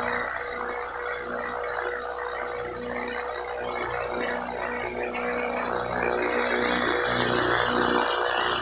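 Electric motor and rotor of a 500-size radio-controlled UH-1H Huey model helicopter spooling up for lift-off: a steady high whine over a rushing rotor sound that grows louder about six seconds in.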